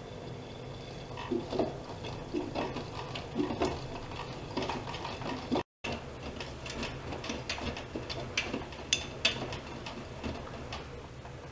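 Privileg Dynamic 7420 washing machine in operation: a steady low hum with many irregular mechanical clicks and clacks.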